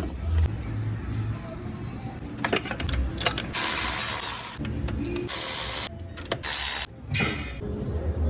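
Ford F-250's faulty starter motor, mechanical noise in several short bursts over a low steady hum, the longest about a second: a bad starter.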